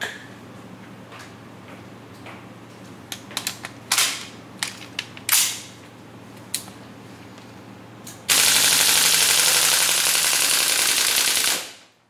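KJ M4 gas blowback airsoft rifle with its new bolt: a few separate sharp clacks, then a burst of full-auto fire lasting about three and a half seconds that cuts off near the end as the magazine runs empty.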